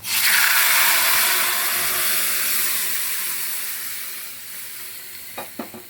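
Hot ghee tarka sizzling loudly as boiled moong dal is poured into the karai, the hiss bursting up at once and slowly dying away. Two or three light utensil knocks near the end.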